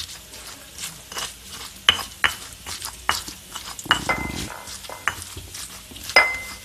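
Stone pestle grinding on a stone mortar (Indonesian cobek and ulekan), crushing garlic, shallots and candlenuts into a spice paste: irregular knocks of stone on stone between gritty scrapes, with a rougher, longer scrape about four seconds in.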